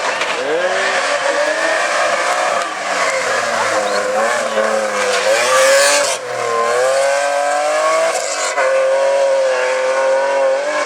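Rally car engine at full throttle, climbing in pitch and dropping sharply at gear changes about six and eight and a half seconds in, then holding a steady pitch near the end. A strong hiss of tyre or road noise peaks just before the first of those drops.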